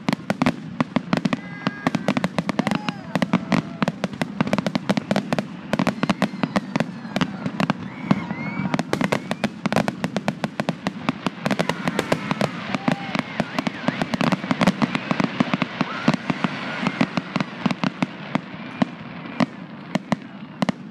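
Fireworks finale barrage: aerial shells bursting in a dense, rapid run of bangs, many a second, with no let-up.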